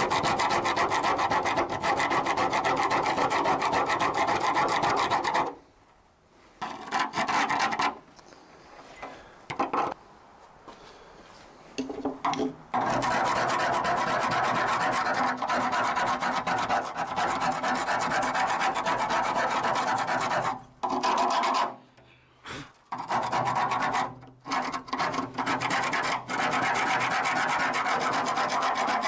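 A flat steel scraper blade scraping rust and old coating off a rusty steel door panel. The scraping runs in long steady spells, with a pause of several seconds after about five seconds and a few short breaks later on.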